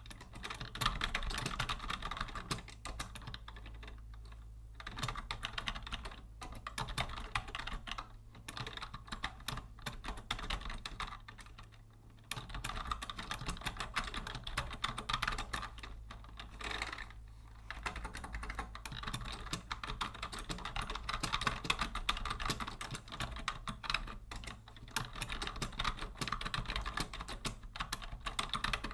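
Typing on a vintage Logitech Deluxe 104 wired keyboard: quick runs of key clicks lasting several seconds, broken by brief pauses.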